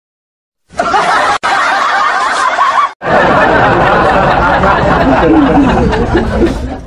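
Laughter, giggling and chuckling, starting after a short silence, cut off abruptly about a second and a half in and again about three seconds in, and fading out at the end.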